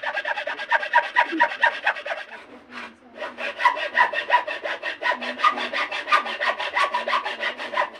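Hacksaw cutting across a dry bamboo tube in fast, even back-and-forth strokes, with a brief pause a little under three seconds in before the sawing resumes.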